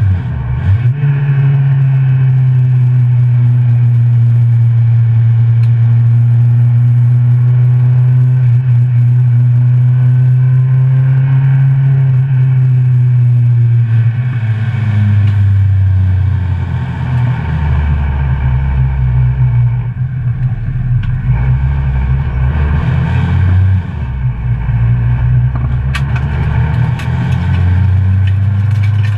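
Citroen C2 GT track car's engine heard from inside the cabin under hard driving. The engine is held at steady high revs for about the first half, then drops to lower, changing revs for several seconds before climbing again near the end.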